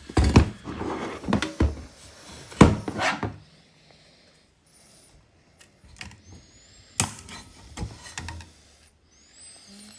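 Plastic knocks and clicks as the brittle housing of a car's multi-function display unit is pried at its clips and worked apart, a busy run of knocks in the first three seconds, then a few scattered clicks.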